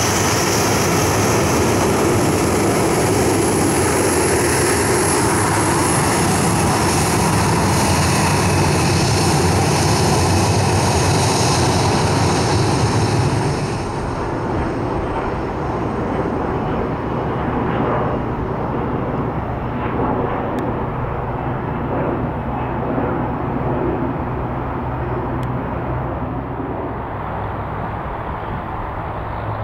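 A Boeing 737-800's CFM56-7B jet engines run with a high whine as the airliner moves past at close range. About 14 seconds in, the sound drops suddenly to a duller, more distant jet rumble with the high whine gone.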